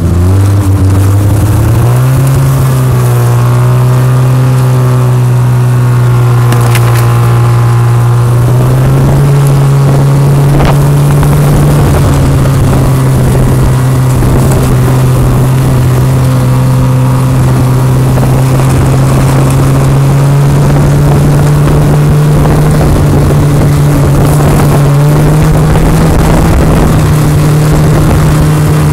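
Snowmobile engine running loud and steady under way, heard from the sled itself, its pitch stepping up about a second in, again about nine seconds in, and once more near the end as the throttle opens.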